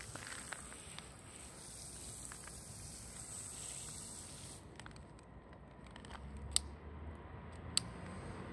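Water spraying from a pistol-grip garden hose nozzle onto asphalt, a steady hiss that stops about halfway through. Two sharp clicks come near the end.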